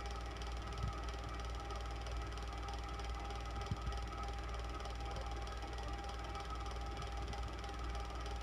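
Electric fan running steadily: a constant whir with a low hum and a faint steady whine, broken by a couple of soft low knocks.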